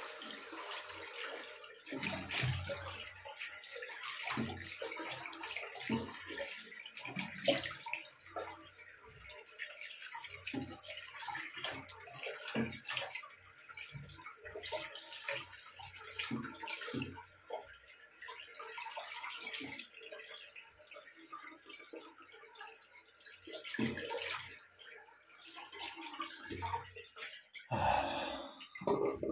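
Running tap water and irregular splashing as a face is rinsed clean after a wet shave.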